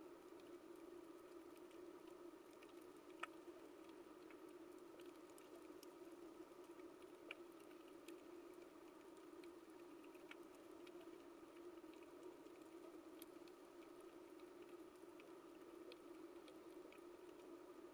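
Faint underwater coral reef ambience: a steady low hum with scattered sharp clicks every second or two.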